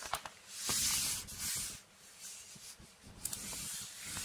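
A hand sweeping over the fabric of an inflatable camping mattress, giving a few separate soft rustling swishes.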